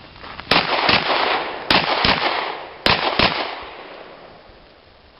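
Semi-automatic service pistol fired six times in three quick pairs, the two shots of each pair about a third of a second apart and the pairs about a second apart: double taps on three targets. Each shot trails off in echo, the last fading out over about a second and a half.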